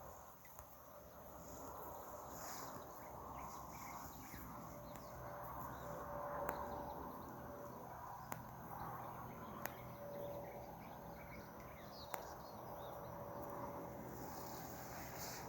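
Faint outdoor natural ambience: a steady background hiss with a thin tone that comes and goes, and four sharp clicks spaced a second or two apart.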